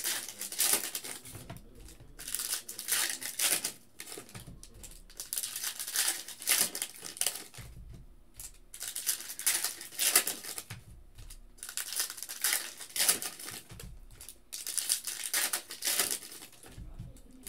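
Foil trading-card pack wrappers crinkling and tearing in repeated short bursts as packs are handled and ripped open by hand.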